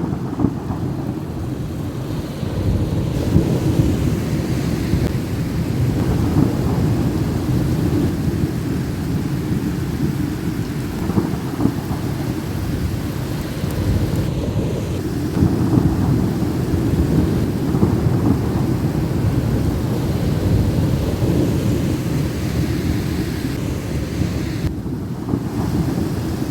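Thunderstorm: rain falling under continuous low rolling thunder that rumbles on without a break.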